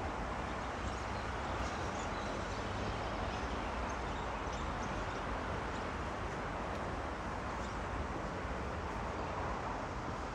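Steady rush of flowing river water, an even noise without swells or breaks.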